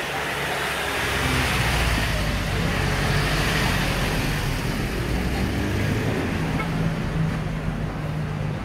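Street traffic noise: a motor vehicle's engine rumbling close by over a steady hiss of road noise, loudest in the middle.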